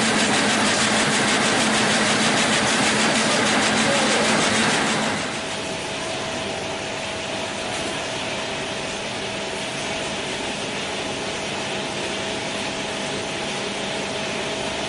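Razor wire crimping machine running with a dense, rapid clatter. About five seconds in, this gives way to a quieter, steady machine hum with a thin whine from the punch press that cuts the barbed tape.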